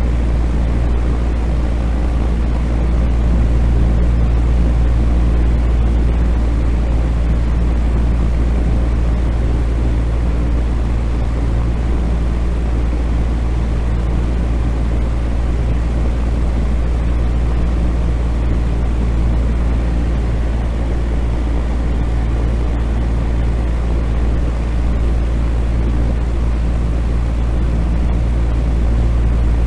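Ventilation fan running steadily: a strong low hum with a few steady tones over an even rush of air, unchanging throughout.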